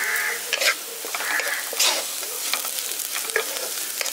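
Chopped vegetables and cashew nuts sizzling in hot oil in an iron kadai, with a steady hiss. A wooden spatula stirring them makes repeated short scrapes and knocks against the pan.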